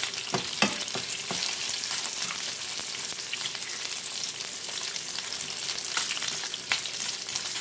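Pork bacon strips sizzling steadily in a nonstick frying pan, with a few light clicks as a fork turns the strips, several in the first second or so and a couple more later on.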